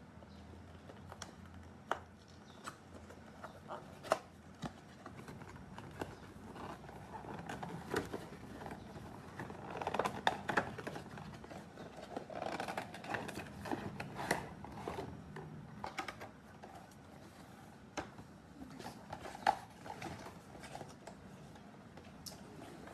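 A small product box being opened and its packaging handled: scattered clicks and taps, with rustling and scraping heaviest about ten to fifteen seconds in.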